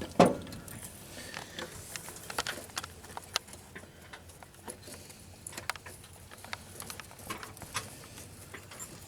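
Wrench and metal fittings clinking during brake line work: one louder knock just after the start, then irregular small metallic clicks.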